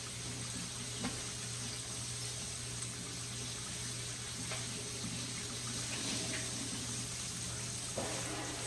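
Whole red snapper frying in oil in a cast iron skillet: a steady sizzle, with a low steady hum underneath and a couple of faint pops.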